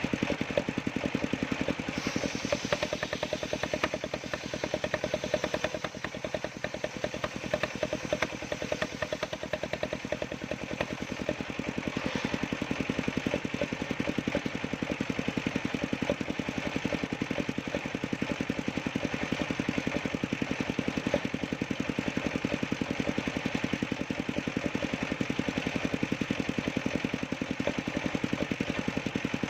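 Engine of a homemade sawmill running steadily, with a fast, even chugging.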